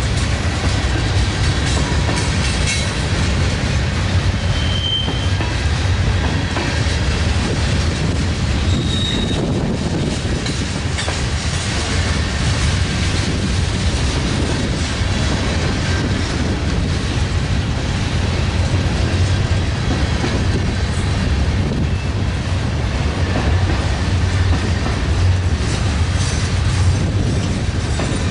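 Freight train cars rolling past on the rails: a loud, steady rumble, with two short high squeals from the wheels about five and nine seconds in.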